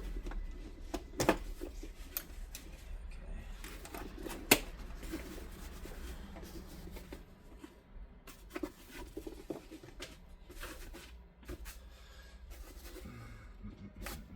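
Stiff laminated bag fabric and webbing being handled and shifted, a rustling, crinkling rub broken by scattered sharp clicks and taps, the loudest about one and four and a half seconds in.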